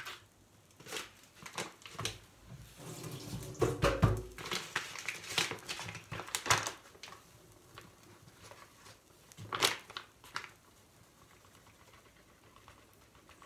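Rustling of packaging and scattered knocks of kitchen items being handled, busiest in the first half, with one sharper knock about ten seconds in.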